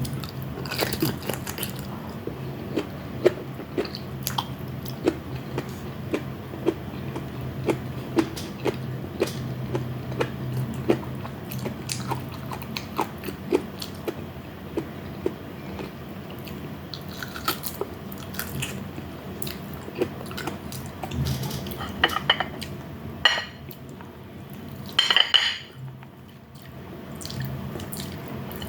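Close-up eating sounds: chewing and crunching with many short mouth clicks, several a second, over a steady low hum. A few louder clinks and clatters of utensils on a plate come near the end.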